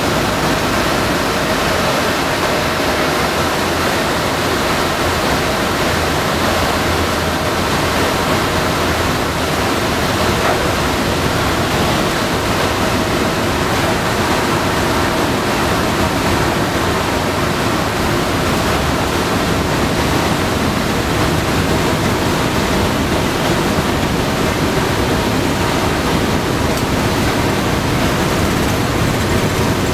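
Loud, steady noise of a B-17G Flying Fortress's four Wright R-1820 Cyclone radial engines and rushing air, heard from inside the bomber's nose as it touches down and rolls out on the runway.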